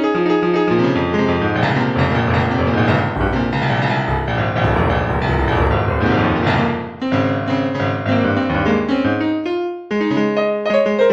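Piano music: a continuous run of notes that briefly drops away about seven seconds in and again near ten seconds.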